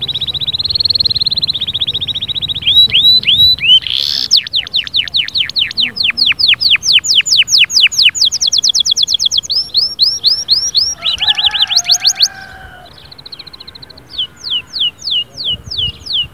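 Domestic canary singing loudly in a cage. The song opens with a fast trill, then long runs of rapid, repeated swooping notes, briefly quieter about two-thirds of the way in before the repeated notes resume.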